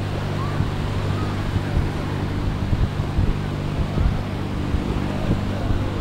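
Beach ambience dominated by a steady low mechanical hum, with wind buffeting the microphone, surf, and faint voices.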